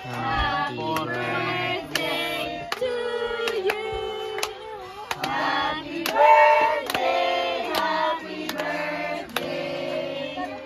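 A group of people singing a birthday song together, with steady clapping in time, about twice a second, as a cake with a lit candle is brought to the table.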